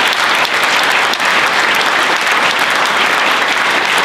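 Audience applauding: many people clapping at once in a steady, unbroken patter.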